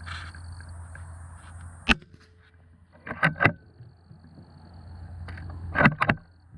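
A single sharp crack of a Suhl 150 .22 LR match rifle firing about two seconds in. It is followed by two pairs of metallic clacks, a little after three seconds and again near the end, as the bolt is worked to eject the case and chamber the next round.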